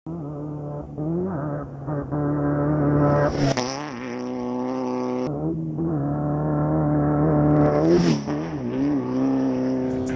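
Off-road race vehicle's engine running hard at high revs, its pitch climbing and falling twice, with a sudden break about halfway through.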